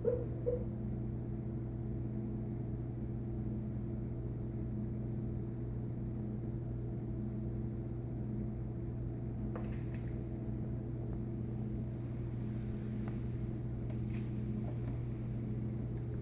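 Steady low hum, like a fan or household appliance running, with a few faint clicks or rustles in the second half.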